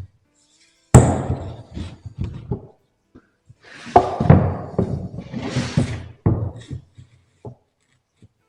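Wooden boards being handled and set down: a loud thunk about a second in, then a run of knocks and clatter, and another sharp thunk after about six seconds.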